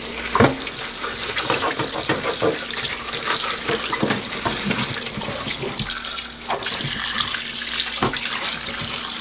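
Kitchen faucet running in a stainless steel sink, the stream splashing onto a whole raw duck as gloved hands rub and rinse it, with a few light knocks against the board and sink.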